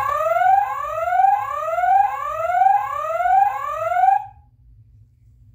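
Spin Master The Batman Batmobile toy playing its electronic siren sound effect, set off by pressing the red roof light: about six rising whoops in a row, each about two-thirds of a second long, stopping about four seconds in.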